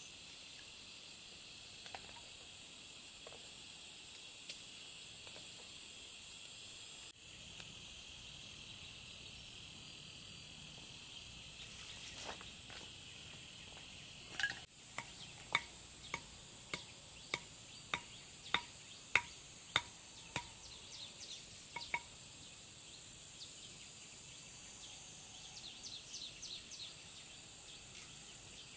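Steady high-pitched chorus of insects. About halfway through comes a run of about a dozen sharp clicks, a little under two a second.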